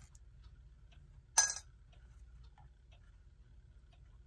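One sharp metallic clink about a second and a half in, with a brief ring: a small metal clock part or tool being handled.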